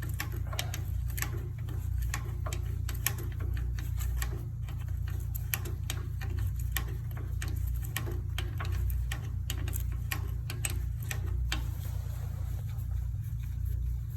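A wrench clicking over and over, about two to three clicks a second, as the adjuster nut that holds the steering rack's spring-loaded pressure pad is unscrewed. The clicking stops near the end, over a steady low hum.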